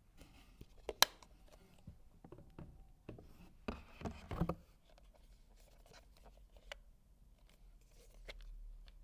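Packaging and parts being handled during an unboxing: a sharp click about a second in, then a short spell of rustling and scraping at about four seconds, with small taps and ticks in between.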